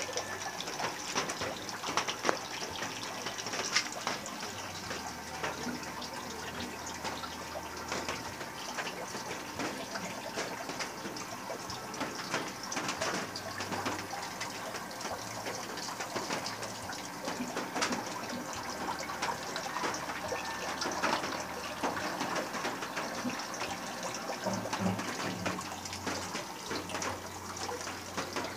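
Water running and bubbling steadily in a home aquarium, with many small crackles and a faint low hum that comes and goes.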